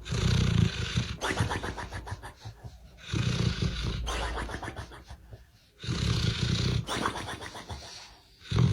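Dog snoring in sleep: three long, fluttering snores about three seconds apart, with a fourth starting near the end.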